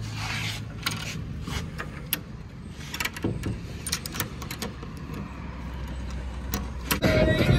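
A metal door hasp and padlock being handled on a plywood door: scattered light metal clicks and rattles over a steady low hum. Music comes in near the end.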